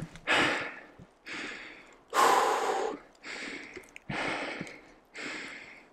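A man breathing hard and fast close to the microphone, about one breath a second, the loudest a little over two seconds in.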